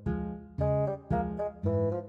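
Background music: a light instrumental tune of plucked guitar-like notes over a steady bass, with a new chord about every half second.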